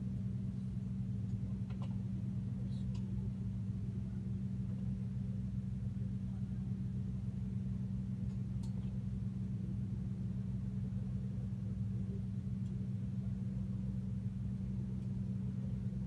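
A boat's engine running at a steady speed, heard from on board as an even low drone.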